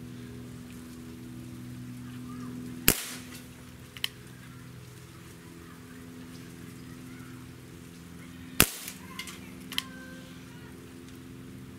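Dan Wesson 715 2.5-inch CO2 .177 pellet revolver fired twice, about six seconds apart, each shot a sharp crack followed about a second later by a fainter click. A steady low hum runs underneath.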